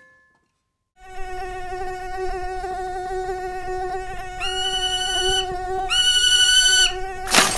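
Quadcopter drone's propellers whining steadily, starting about a second in. A higher-pitched whine joins twice, for about a second each time. A brief loud rush of noise comes near the end.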